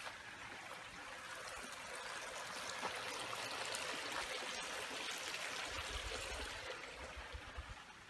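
Small creek running, a steady rush of water that swells toward the middle and fades again near the end.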